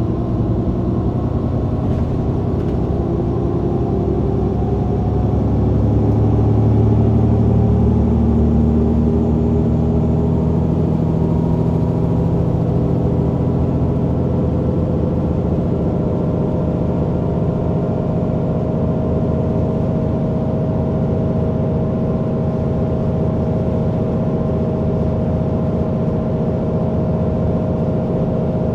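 Mercedes-Benz O530 Citaro bus's diesel engine and Voith automatic gearbox, heard from directly above the engine while the bus drives on. The engine pulls harder, loudest about seven seconds in, then settles into a steady cruise, with a steady whine joining about halfway.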